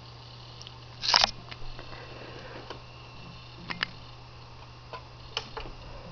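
Mechanical hard drive seeking while an operating system loads: scattered irregular ticks and clicks, the loudest cluster about a second in, over a steady low hum.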